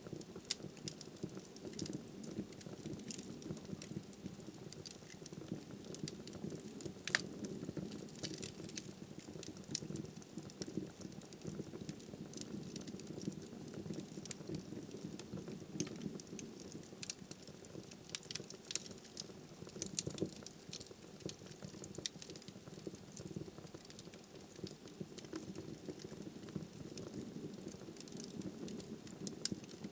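Wood fire burning in a fireplace: a steady low rustle of flames with frequent sharp crackles and pops from the burning firewood, a louder pop about seven seconds in and a cluster of them around twenty seconds.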